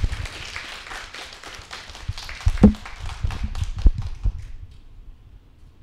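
Audience applauding, the clapping thinning out and fading away about four seconds in, with a couple of low thumps in the middle.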